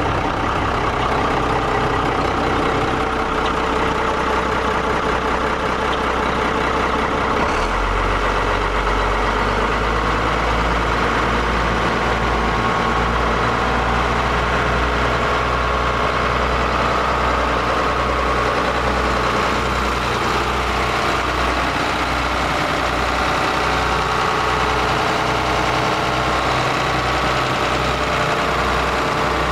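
1986 Ford Cargo 7000 grain truck's engine idling steadily. About seven seconds in, its low hum gets louder and begins to pulse slowly.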